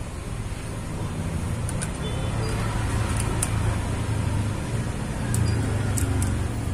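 A motor vehicle's engine running, a low rumble that grows louder through the middle and eases slightly near the end. A few faint light clicks come from a screwdriver tightening the scope-mount screws on an air rifle.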